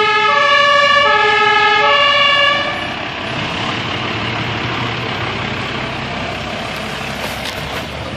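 German two-tone fire engine siren (Martinshorn) alternating between its two pitches, cutting off about two and a half seconds in. After that, the steady noise of a vehicle engine and tyres.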